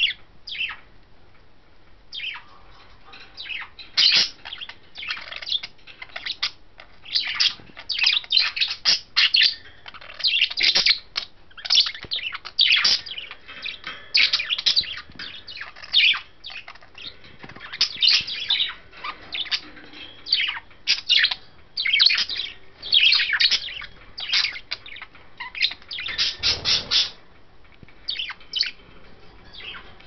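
Pet budgerigars chattering in a long run of short, high chirps and warbles, with a brief rustle near the end.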